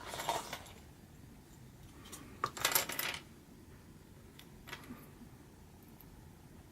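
Small hard plastic LEGO Technic pieces clattering against each other as they are handled: a short burst at the start, a louder one about two and a half seconds in, then a few single clicks.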